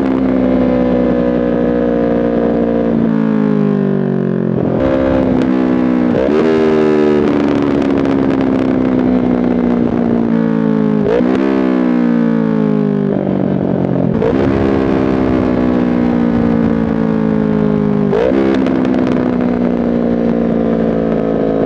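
Yamaha R3's 321 cc parallel-twin through a full SC Project exhaust, blipped on downshifts several times: each time the pitch jumps up sharply, then falls slowly as the bike slows on engine braking. Pops and crackles from the exhaust on deceleration between the blips.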